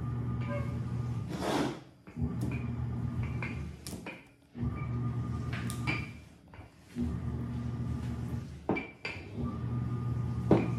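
Wooden rolling pin rolling back and forth over dough on a tabletop: a low rumble in about five strokes of a second and a half to two seconds each, with brief pauses and a few light knocks between strokes.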